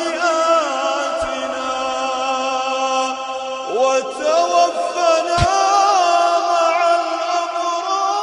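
A man's voice chanting in long held notes that slide and curl in pitch, in the melodic style of Quranic recitation (tajwid). Two brief low thumps, about a second in and about five seconds in.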